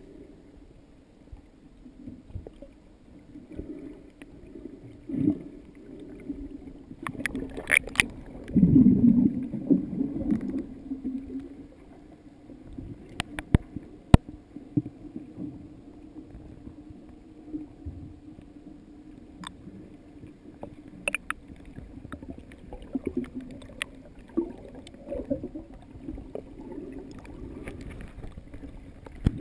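Muffled underwater sound from a camera beneath the surface: a low wash of moving water that swells and fades, loudest around nine seconds in, with a few sharp clicks scattered through it.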